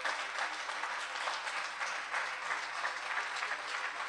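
An audience applauding, many people clapping steadily together.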